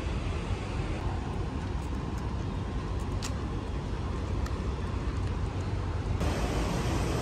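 Steady low rumble of city traffic and street ambience, with a faint click about three seconds in; the background changes abruptly about six seconds in and gets a little louder.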